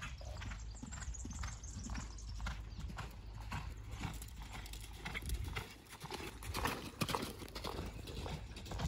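Hoofbeats of a ridden bay colt going around a sand arena: a steady run of dull thuds on the sand.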